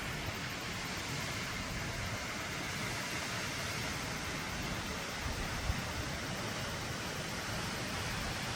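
Steady rush of falling water, an even hiss with no breaks, and a faint knock a little before six seconds in.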